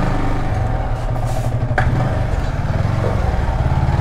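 Yamaha R15 V3's single-cylinder engine running steadily, with a single sharp click a little under two seconds in.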